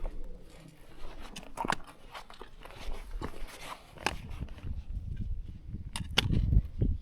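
Footsteps crunching on rough summit ground, with scattered sharp clicks, and wind buffeting the microphone in low rumbles at the start and again near the end.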